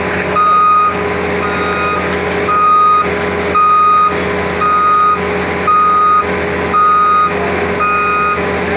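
Bulldozer's reverse alarm beeping about once a second over its engine running steadily: the machine is backing up.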